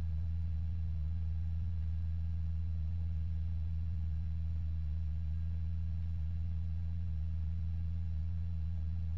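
Steady low hum on a police helicopter's intercom audio, an even drone that does not change.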